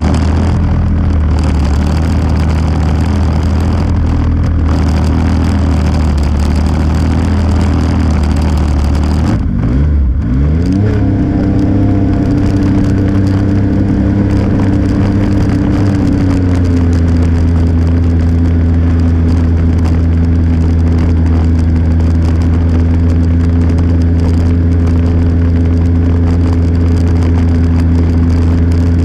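Engine of the vehicle carrying the camera running close by, steady at first, then revving up with a rising pitch about ten seconds in and settling back to a steady cruise with a small drop in pitch a few seconds later.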